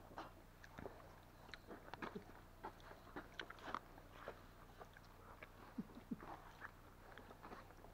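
Faint, scattered small crunches and clicks of someone chewing and handling a bunch of grapes, against near silence.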